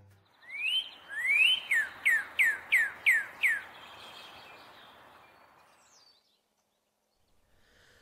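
Northern cardinal singing: two rising whistles, then a quick run of about six falling notes, over a faint hiss that fades away. The last two seconds are near silence.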